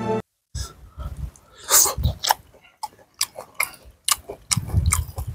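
Background music cuts off at the start, then a person chews a mouthful of fried fish and rice close to the microphone, with irregular wet mouth clicks and smacks.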